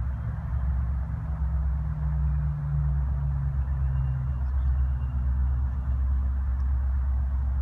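A motor vehicle engine running, a steady low drone whose pitch shifts slightly about three seconds in.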